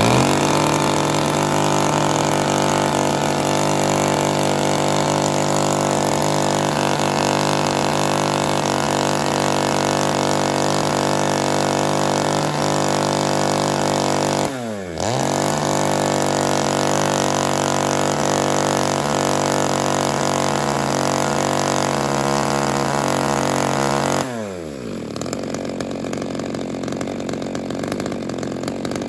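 Hitachi CS35 33.4 cc two-stroke chainsaw running steadily, its bar pointed over cardboard to check that the chain oiler throws oil. About halfway through the engine speed dips and picks straight back up. Near the end it drops to a lower, quieter speed.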